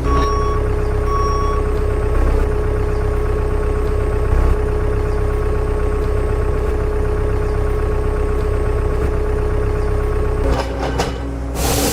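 Heavy vehicle engine running steadily, a low rumble with a held whine over it, and two short beeps like a reversing alarm in the first second and a half.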